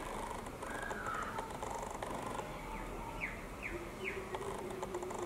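Outdoor birdsong: a whistled note about a second in, three quick falling chirps around three to four seconds, and a lower held note near the end, over a faint high insect buzz.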